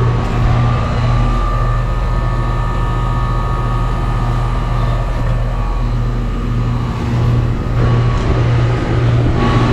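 2008 Goodman GSC13 13 SEER air conditioner condensing unit running: a steady compressor hum with a few held tones over the condenser fan's airflow. The compressor sounds strained, which the owner calls an angry compressor that does not sound happy at all.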